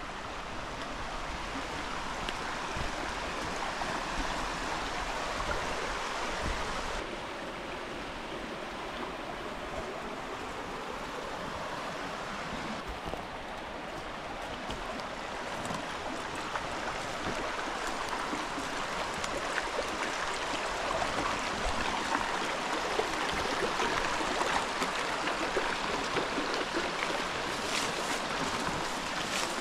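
Shallow rocky forest stream rushing and babbling steadily over stones, a little softer for a few seconds in the middle.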